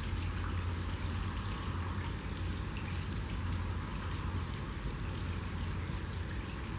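Steady rain falling on the water of a swimming pool and the surrounding wet concrete deck: a dense, even hiss of drops with a steady low rumble underneath.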